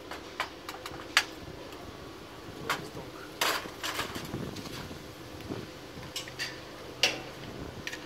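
Rusty steel exhaust pipe sections clinking and knocking as they are handled and set down, a scatter of sharp metal knocks with the loudest about a second in and about seven seconds in.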